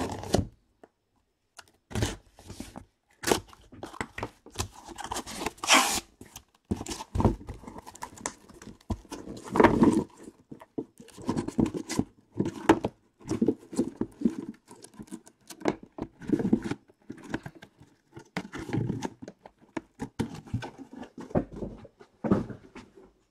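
A cardboard shipping case being cut and torn open, then shrink-wrapped hobby boxes of cards slid out and set down in a stack: irregular tearing, rustling and light knocks of cardboard on the table.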